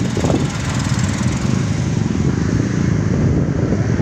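Strong wind buffeting the microphone, a loud, steady low rumble.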